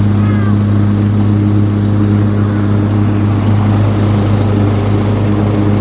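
Cub Cadet riding lawn mower's engine running at a steady speed while mowing, a loud even drone.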